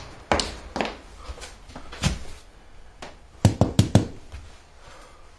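Footsteps of hard-soled shoes on a hard floor: a few spaced steps in the first two seconds, the heaviest about two seconds in, then four quick sharp taps about three and a half seconds in.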